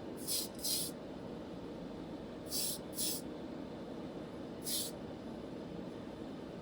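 Short hissing spray bursts: two close together near the start, two more about two and a half seconds in, and a single one near five seconds. A steady low hum runs underneath.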